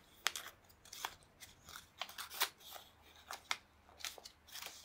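Paper crinkling and rustling in short, irregular crackles as glued paper tabs are folded and pressed into place by hand.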